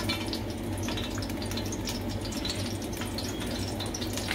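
Cooking oil squeezed from a plastic bottle into an aluminium pot of whole spices, with faint scattered ticks and crackles over a steady low hum.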